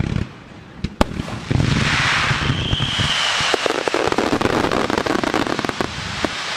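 Fireworks finale: two sharp bangs in the first second, then from about a second and a half in a loud, dense crackling of many shells and fountains going off at once. A brief high whistle sounds partway through.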